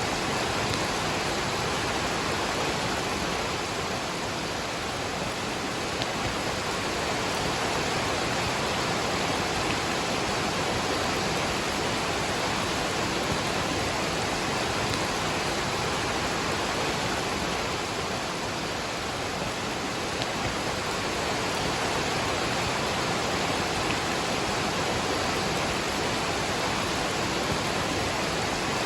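Steady rushing of a waterfall mixed with falling rain: an even, unbroken wash of water noise.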